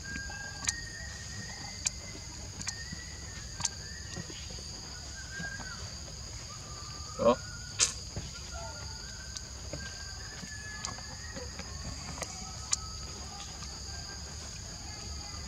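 Forest insects droning steadily at two high pitches, with scattered sharp clicks and faint short calls. A brief louder call and a click come about halfway through.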